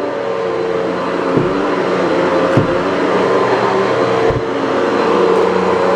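Bissell CleanView 9595A bagless upright vacuum cleaner running steadily as it is pushed over carpet, a motor hum under a steady rush of air, with three low thumps along the way.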